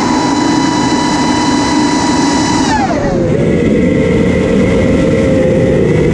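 Brushless motors and propellers of a 6S Nazgul FPV quadcopter whining steadily, over a rushing noise. About three seconds in the whine drops sharply to a lower pitch and holds there as the throttle is pulled back and the motors slow.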